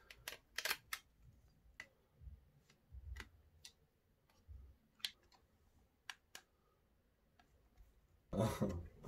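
Scattered light clicks and taps from small parts and a project enclosure being handled on a workbench, with a few soft low thumps. A brief louder burst of noise comes near the end.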